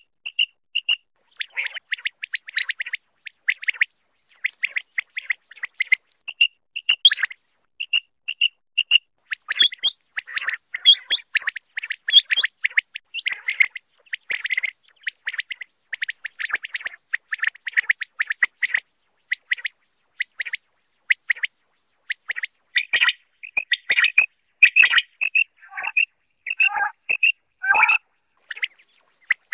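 Common quail calling: a fast, nearly unbroken run of short high chirps, with a few quick falling calls near the end.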